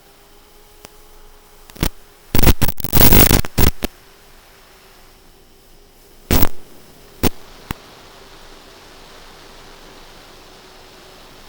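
Steady hiss from an FPV goggle DVR recording, broken by loud bursts of static: a cluster about two to four seconds in, then a few short bursts around six to eight seconds.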